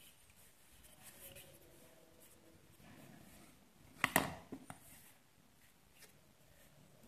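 Quiet handling of plastic protein tubs on a hard floor, with one sharp knock about four seconds in and a couple of lighter clicks just after.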